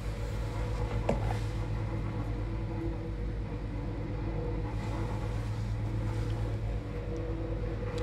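A steady low electrical hum with a constant drone, with one faint click about a second in.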